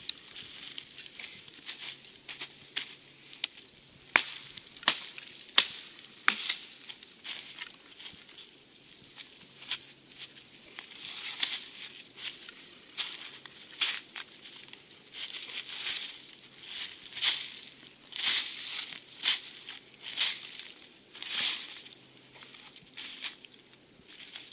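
Dry leaf litter crunching and rustling in irregular bursts as it is scraped and cleared by hand, with sharp cracks among it, most thickly between about four and six seconds in.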